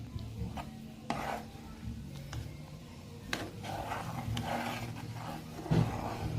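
A handful of scattered clicks and knocks over a low background hum, the last knock near the end the loudest.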